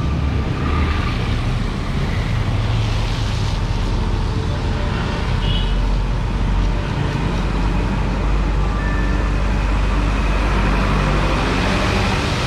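Busy city road traffic: a steady wash of vehicle engines and tyre noise as cars and other vehicles pass close by.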